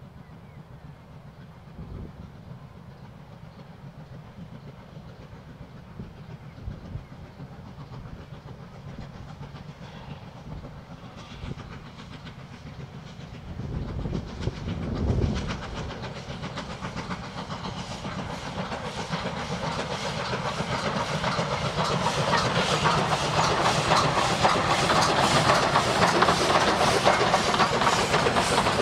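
Narrow-gauge steam locomotive W934 working hard with a passenger train, its exhaust beats and the carriage wheels clicking over the rail joints growing steadily louder as the train approaches and passes. There is a brief low rumble about halfway through.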